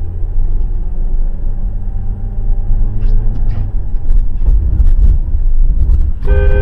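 Steady low road and engine rumble heard from inside a moving car. About six seconds in, a vehicle horn starts and is held steadily as a truck comes toward the car.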